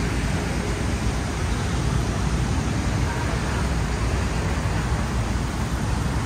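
Steady city street ambience: a continuous low rumble of traffic with a hiss over it, no single sound standing out.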